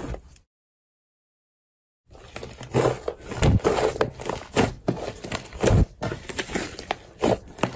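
Soft, fluffy slime kneaded and pressed by hand, making irregular squishing and crackling with many small pops. It is silent from about half a second in until about two seconds in.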